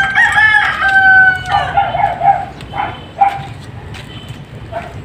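A rooster crowing: one long call of about two seconds, then a few short, fainter notes.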